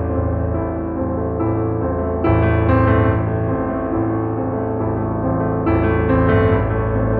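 Background music played on piano or electric piano: sustained chords that change every few seconds, with fresh chords entering about two seconds in and again near six seconds.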